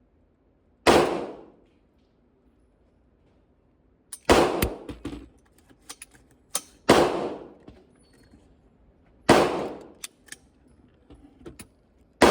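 Gunshots on a firing range: four single loud shots a few seconds apart, each with a ringing echo that dies away, and a fifth right at the end, with fainter cracks in between.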